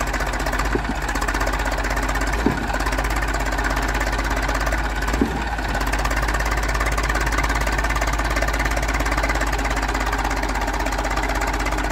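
Eicher 380 tractor's diesel engine running hard under heavy load, stuck in deep mud. There are a few sharp knocks about one, two and a half, and five seconds in.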